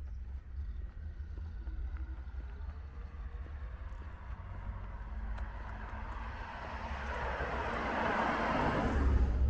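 A Mercedes-Benz sedan approaching on the road and passing close by, its tyre and engine noise growing steadily louder over the last few seconds and falling away sharply as it goes past. Wind rumbles on the microphone throughout.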